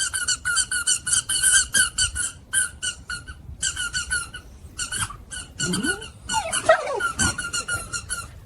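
A fast run of high-pitched squeaks, about five a second, breaking off and starting again several times. In the middle a dog whines in gliding, wavering tones over the squeaks.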